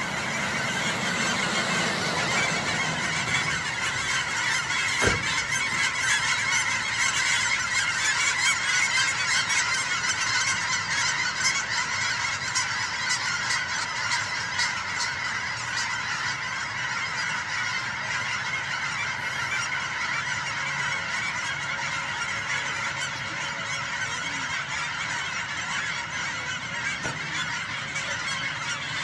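A large flock of migrating geese honking continuously as they circle before landing, hundreds of overlapping calls blending into a steady chorus.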